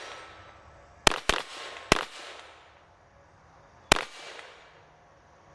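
Ruger LC Carbine in 5.7x28mm firing four shots: two in quick succession about a second in, a third just after, and a last one about two seconds later. Each shot is followed by a short echoing tail.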